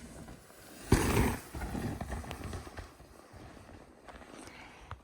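Mountain bike rolling down a dirt trail: low tyre rumble with scattered clicks and rattles, and a sudden louder thump and rush about a second in.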